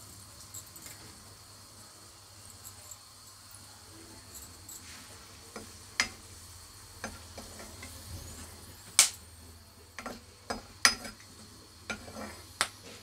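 Whole spices frying in hot oil in a nonstick kadhai, a faint sizzle under sharp clicks as a metal ladle taps and scrapes the pan while stirring. The clicks come mostly in the second half, the loudest about nine seconds in.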